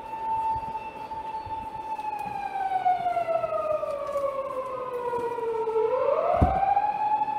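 Electric whine from a train's traction inverter and motors, like a siren. It holds one pitch, glides down over about four seconds, then sweeps sharply back up with a low thud near the end and settles on a steady tone.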